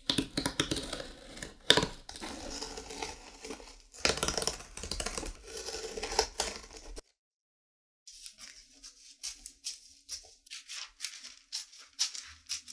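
Utility knife cutting through cardboard with dense scraping and crackling and a few sharp clicks. After a brief break, scissors snip through tracing paper in a quick run of short snips.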